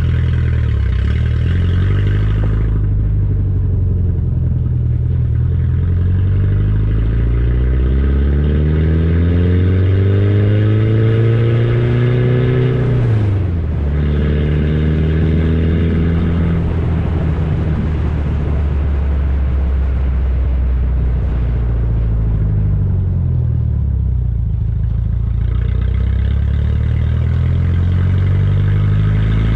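A 1994 Ford Ranger's 2.3-litre inline four-cylinder engine running loud through a cut-down exhaust. Its pitch climbs steadily for several seconds, drops sharply about halfway through, then holds lower with a brief dip and recovery near the end.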